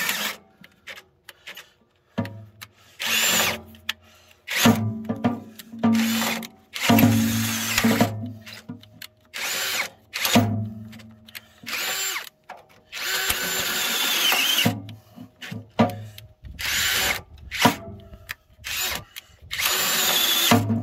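Ryobi cordless drill boring a hole through the steel of a tractor loader bucket. It runs in repeated bursts of one to three seconds with short pauses between.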